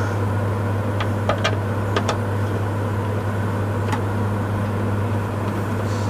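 A steady low mechanical hum, with a few faint small clicks about one, two and four seconds in as the new door latch's screws are started by hand in the car door's edge.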